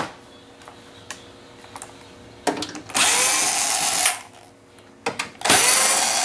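Cordless drill-driver backing out two screws: two runs of about a second each, the motor's whine rising as it spins up at the start of each.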